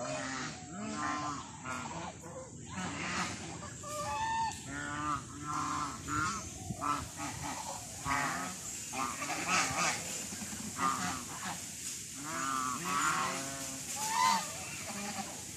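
A flock of domestic geese honking, with many short calls one after another and often overlapping.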